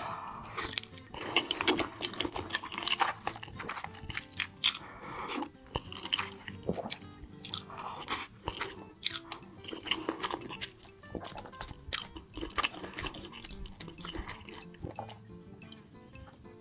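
Close-miked eating of creamy pasta: wet chewing, slurping and mouth smacks in irregular sharp clicks, over faint background music.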